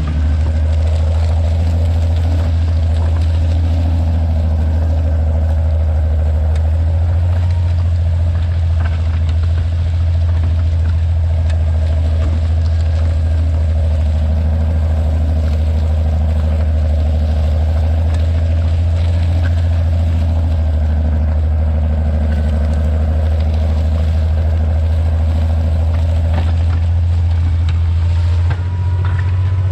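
1962 Farmall 560's six-cylinder engine running steadily under load, pulling a plow through wheat stubble: a loud, even, low drone.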